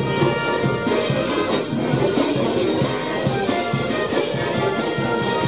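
A brass band playing, its trumpets and trombones holding notes, with many short crackles from a burning firework tower mixed in.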